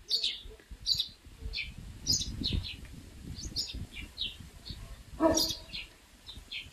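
Small birds chirping: short high chirps every half second or so, with one louder, fuller call about five seconds in.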